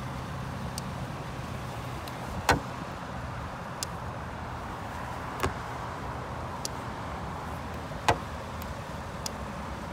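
Sharp clicks of a handheld paint (coating) thickness gauge's probe being set against a truck's painted metal body panels while taking readings. There are three louder clicks roughly every three seconds, with fainter ones between, over steady outdoor background noise.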